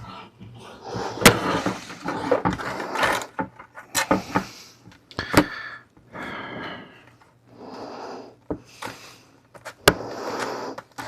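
Craft material being handled and worked by hand: irregular rustling, broken by a few sharp clicks, the loudest about a second in and another near the end.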